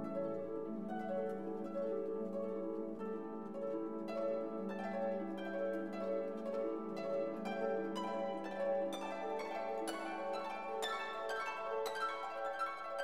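Background instrumental music: plucked notes over a held low tone, the plucked notes coming thicker from about four seconds in.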